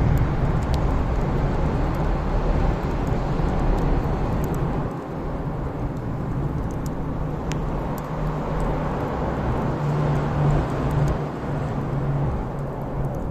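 Wood fire burning, with a strong steady low rumble and scattered sharp crackling pops.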